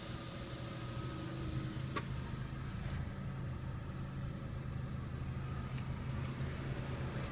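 Car engine idling steadily, with one sharp click about two seconds in.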